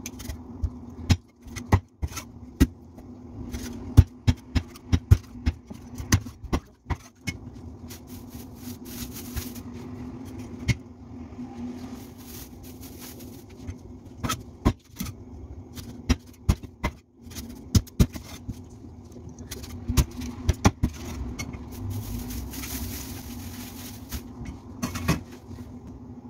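A cleaver chopping through a large fish onto a thick wooden chopping block: repeated, irregular sharp chops, sometimes several in quick succession, over a steady low hum.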